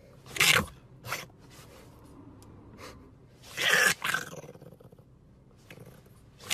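French bulldog puppy howling in a few short, loud cries: one about half a second in, a brief one near a second, and the longest around three and a half to four seconds in.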